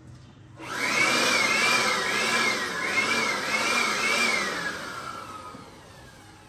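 Corded handheld electric dust blower switched on about half a second in, running loudly with a rushing whine that wavers up and down in pitch. Near the end it is switched off and spins down, its whine falling away.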